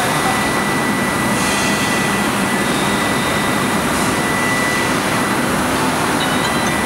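Steady din of a factory floor of ST-200 C-frame sheet-metal stamping presses running, with a thin steady high whine through the noise.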